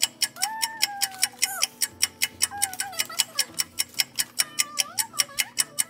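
Rapid, even clock-like ticking, about six ticks a second, with a high wavering tone coming and going between the ticks.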